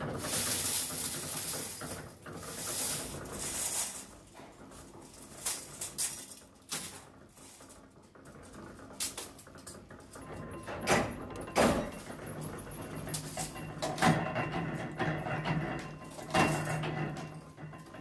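Stamped stainless-steel sheet scrap rattling and clattering as it is handled. In the second half, a flywheel-driven mechanical power press runs with a steady hum and sharp stamping strikes about every second, with steel spoon blanks clinking.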